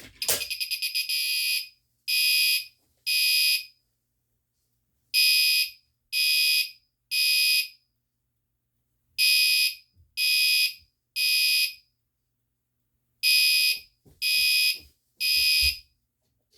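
Fire alarm horn set off from a pull station. It opens with about a second and a half of rapid pulsing, then sounds a high-pitched electronic horn in the temporal-three evacuation pattern: three beeps about a second apart, a pause, then three more, repeating.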